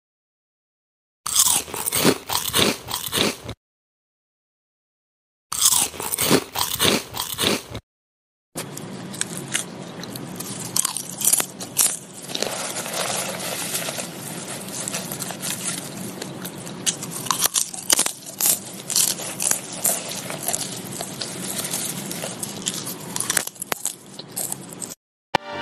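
A child biting into and chewing corn on the cob, with crisp crunches as the kernels are bitten off. For the first eight seconds it comes in short spells with silent gaps between; after that it runs on without a break.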